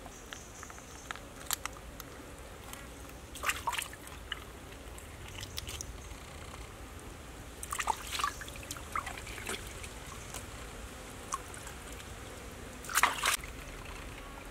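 Shallow water trickling, dripping and sloshing around hands working a large fish, with a few scattered short wet sounds, the loudest near the end.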